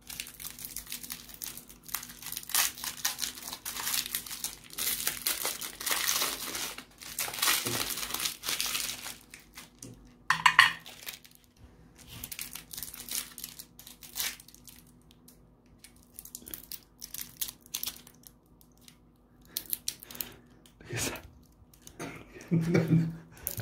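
Clear plastic wrapper of a hard-candy lollipop crinkling as it is handled and torn open: a dense crackle for the first several seconds, then in shorter spells.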